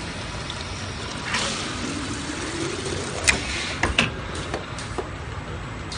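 Automatic piston filling machine running while filling plastic bottles with liquid detergent: a steady mechanical noise, a hiss about a second and a half in, then liquid pouring with a tone that rises in pitch. Several sharp clicks from the machine follow in the second half.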